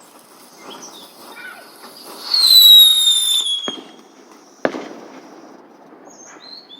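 Novelty car firework whistling, its pitch falling slowly for about a second and a half, then two sharp bangs about a second apart, the second the stronger.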